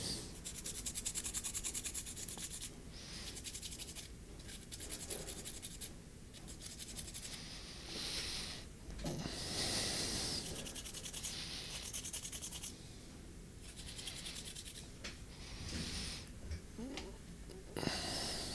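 Scrubbing of a dirty steel BGA reballing stencil during cleaning, heard as several spells of quick back-and-forth rubbing strokes with short pauses between.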